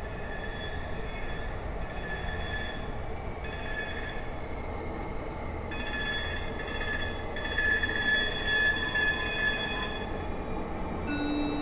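Muni light rail train approaching through the subway tunnel: high steel-wheel squeal that comes and goes in several stretches over a low rumble, the sound growing louder.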